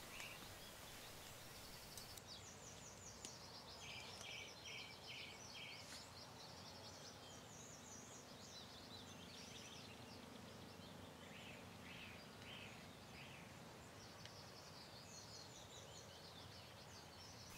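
Near silence with faint birdsong: small birds chirping and trilling, with a run of about five quick repeated notes a little over three seconds in.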